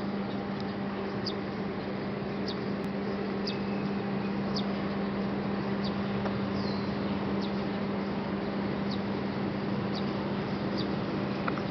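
Steady outdoor background with a low hum, and short high chirps repeating about once a second.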